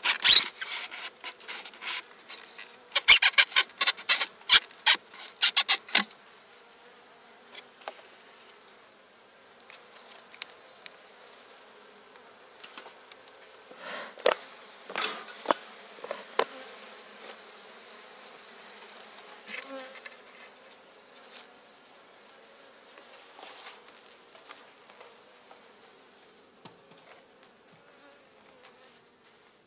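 Honeybees buzzing steadily around an open hive. Sharp knocks and scrapes of wooden hive parts being handled in the first six seconds and again around fourteen to sixteen seconds; these are the loudest sounds.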